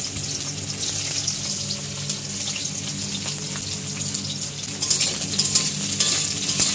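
Pointed gourd pieces sizzling as they fry in hot oil in a metal kadai. About five seconds in the sizzle grows louder and crackles as a steel spatula turns them.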